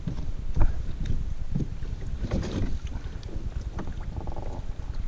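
Wind rumbling on the microphone aboard a plastic kayak, with a few light knocks and bumps of gear against the hull.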